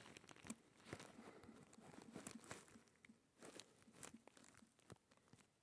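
Near silence, with faint scattered taps and rustles from a phone being typed on and handled.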